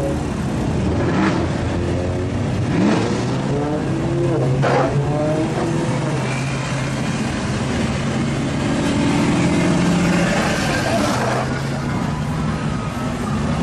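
Modified cars driving past with their engines running and revving. Several exhaust notes overlap, with revs rising and falling a few seconds in.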